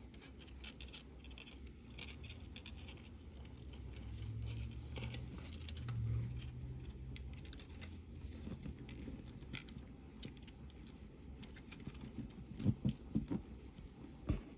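Faint handling sounds of silver-plated copper wire and a rose quartz cabochon being worked between fingers: light scratches and small clicks of wire, with a few short knocks near the end.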